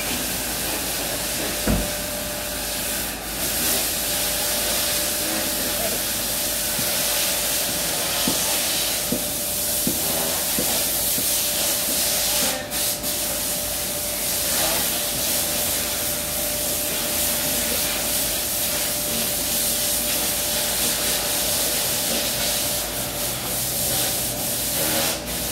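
Belanger car wash tunnel running: a steady hiss of water spray with cloth brushes rubbing, over a faint steady tone.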